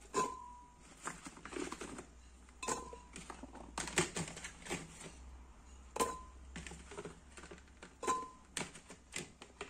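Chunks of carrot and apple dropped into a glass blender jar: irregular knocks every second or so, several of them followed by a short ringing clink from the glass.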